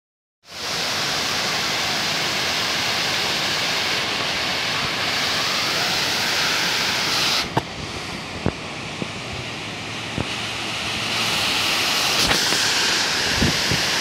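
Waterfall rushing steadily. About halfway through the rush abruptly changes, losing some of its hiss, and several short knocks follow.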